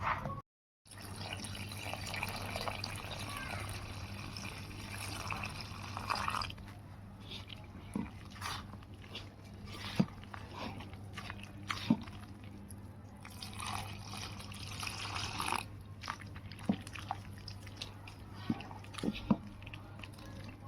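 Kitchen cooking sounds: stretches of liquid-like hiss and scattered sharp clicks, over a steady low hum.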